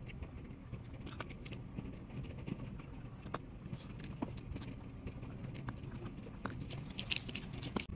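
A Chihuahua chewing a piece of grilled chicken heart: soft, irregular clicks and smacks of the small dog's mouth, more of them close together near the end, over a low steady hum.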